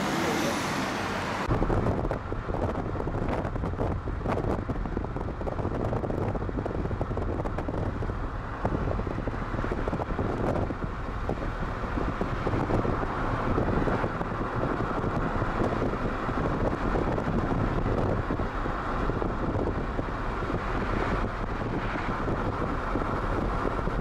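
Car on the move: steady road and engine noise, with gusts of wind on the microphone.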